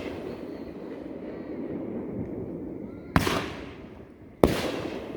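Fireworks bursting: two sharp bangs about a second and a half apart, a little over 3 seconds in and near the end, each trailing off, over a steady low rumble.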